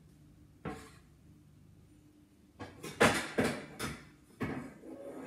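Metal pots and pans clattering in a kitchen cupboard as they are rummaged through and a saucepan is pulled out: a single knock about a second in, then a burst of sharp clanks from about two and a half seconds on, the loudest near three seconds.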